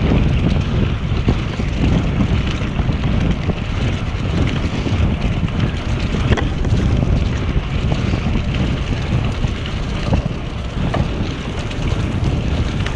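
Wind buffeting a GoPro's microphone on a moving bicycle: a steady low rushing, with the road bike's tyres rolling over the leaf-covered trail surface and a few faint ticks.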